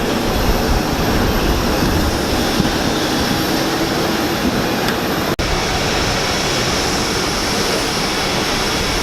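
Steady noise of jet aircraft engines running, with a high whine over it, broken by a sudden brief cut about five seconds in.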